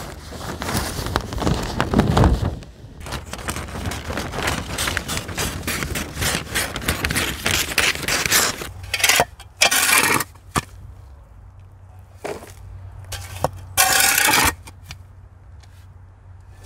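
Kraft paper crinkling and rustling as it is handled and cut with scissors, a dense run of crackles and snips. From about nine seconds in it gives way to a shovel scraping and scooping soil in a raised bed, in three or four separate strokes with short pauses between.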